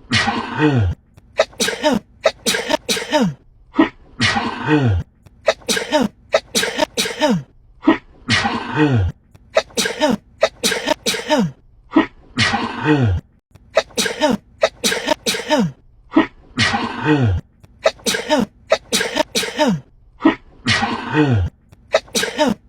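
A woman sneezing in rapid fits: a string of short, sharp sneezes, then a longer sneeze whose voiced end falls in pitch. The same fit repeats about every four seconds.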